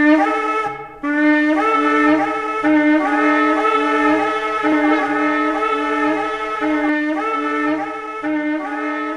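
A horn sounding a series of long held notes with upward slides between them, after a short break just under a second in.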